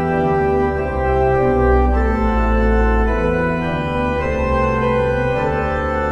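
Organ playing slow, held chords over a deep bass line, the chords changing every second or so.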